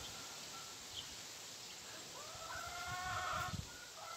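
A farm animal gives one drawn-out, wavering call about two seconds in, lasting over a second, over a steady hiss.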